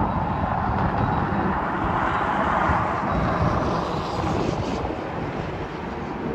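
Outdoor ambience: steady noise with wind rumble on the microphone, and a broad distant wash of sound that swells about two seconds in and eases off toward the end.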